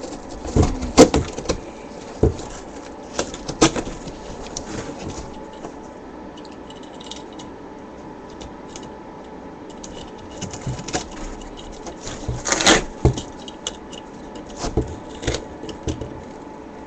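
Cardboard being cut with a craft knife and handled: irregular scrapes, knocks and rustles, with a louder cluster of knocks about three-quarters of the way through.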